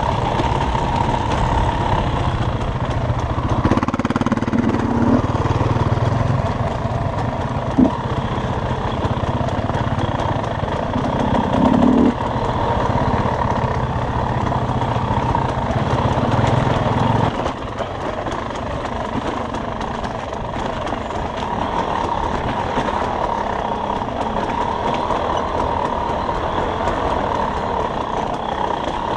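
Dirt bike engine running steadily under the rider on a rough trail. Its low rumble drops off about two-thirds of the way through. There are two short thumps, about eight and twelve seconds in.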